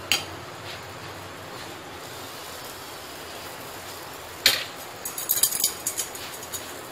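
Steel spoon knocking and scraping on a chapati on a hot iron tawa while oil is spread over it, over a faint steady frying hiss. One sharp knock comes about four and a half seconds in, then a quick run of scrapes and clicks.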